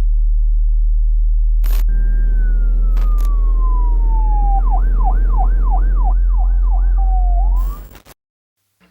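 Police-style siren: one long falling wail, then a quick yelp of about six up-and-down sweeps and a short rising note, over a steady low hum. It cuts off suddenly about eight seconds in.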